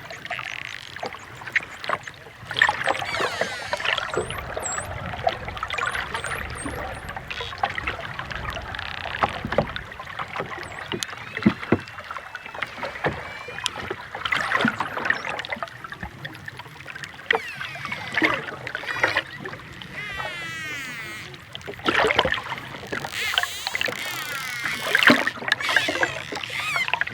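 Dolphin vocalising in its chattering 'laugh': repeated bouts of fast, wavering squeals mixed with clicks and a few thin high whistles. The bouts come and go throughout and are loudest about three quarters of the way through.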